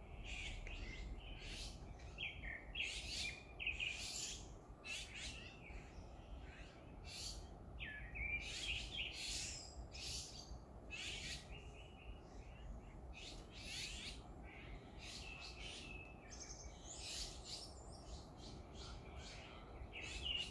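Several birds chirping and calling, their short, quick calls overlapping almost without pause, over a steady low background rumble.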